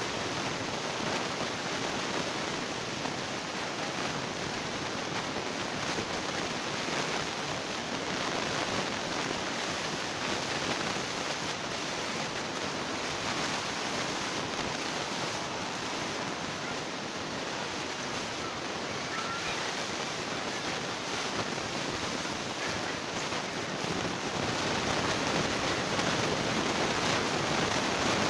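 A steady rushing noise, growing a little louder near the end.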